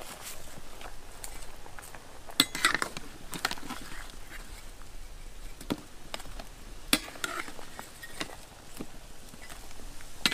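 Metal ladle clinking and scraping against an aluminium cooking pot as boiled shoots are scooped out, about eight irregular knocks, some ringing briefly, over the steady hiss of the steaming pot on the wood fire.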